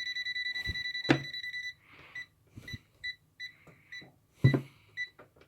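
Etekcity A1000 multimeter's non-contact voltage detector beeping at live wiring: a high, rapidly pulsing tone for the first second and a half, then short beeps at about three a second. A few light handling knocks in between.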